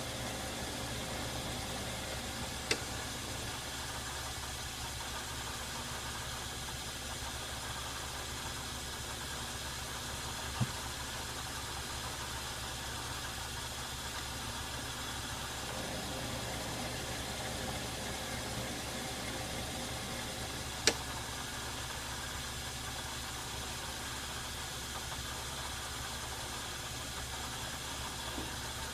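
Metal lathe running steadily while taking cuts, its motor and gearing giving an even hum. Three short sharp clicks stand out, about 3, 10 and 21 seconds in.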